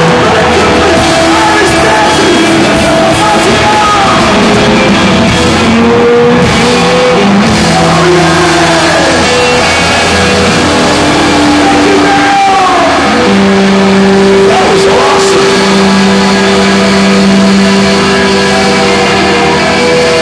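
Loud Irish folk-rock music with long held notes and occasional sliding pitches.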